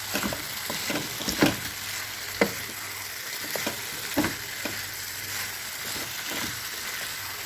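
Chicken and potatoes sizzling in a pot while a spoon stirs and turns them, with irregular knocks and scrapes of the spoon against the pot about once a second.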